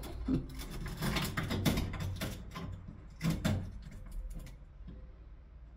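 Irregular clicks, knocks and scraping as a glass pane stuck into a door frame with oil paint is pried loose, fading near the end.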